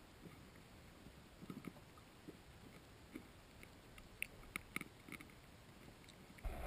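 Faint, scattered clicks and soft low knocks of carp feeding underwater, heard through the water, with a few sharper clicks about four to five seconds in.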